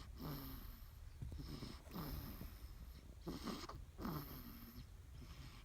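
A week-old newborn snoring in her sleep: quick breaths about one a second, each carrying a short falling tone, over a steady low hum.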